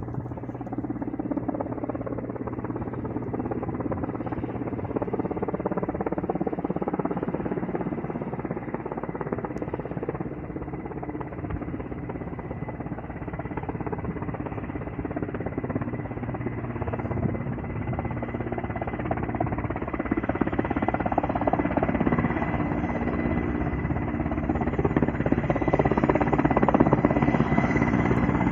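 Helicopter running overhead: steady rotor and engine noise with a thin high whine, growing louder in the last third as it comes closer.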